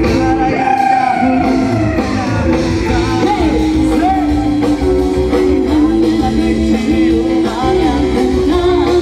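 A woman singing a song into a microphone with a live band accompanying her on electric guitar, amplified through loudspeakers.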